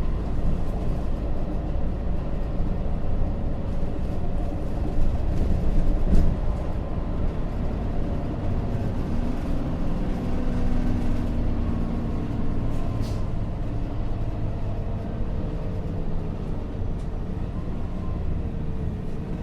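Inside a local bus on the move: steady engine and road rumble with a shifting engine note, and a couple of brief clicks or knocks, one about six seconds in and another near thirteen seconds.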